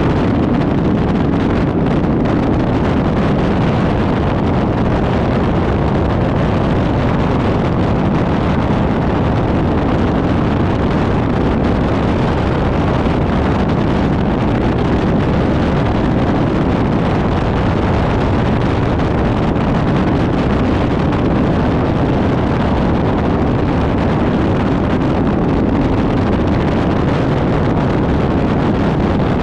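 Bass boat running flat out across the water: the outboard motor holds a steady high throttle under a constant rush of wind on the microphone.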